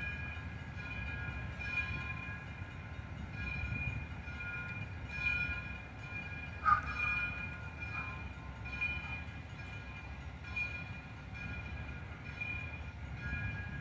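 Steam locomotive's bell ringing steadily, about one stroke a second, over the low rumble of the engine moving slowly along the track. A sharp, short clank or squeal cuts through about halfway in.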